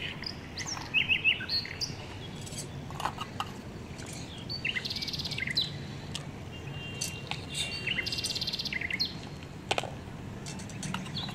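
Small birds chirping and twittering, with two quick trills partway through, and a few light clicks of a small metal slotted spoon on miniature toy dishes.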